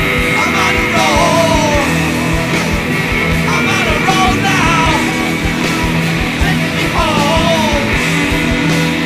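Stoner rock band playing: distorted electric guitar, bass and drums in a steady beat, with a sliding lead line in three short phrases.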